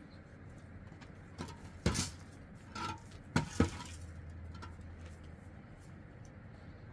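A handful of sharp clinks and knocks of hard objects handled against each other, about five in two seconds, one ringing briefly. A low steady hum sits beneath.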